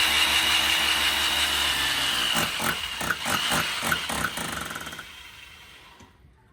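Electric drill boring a hole into a wall, running steadily with a high whine, then stopping about two seconds in. A quick run of short knocks and rattles follows for a couple of seconds, then it fades away.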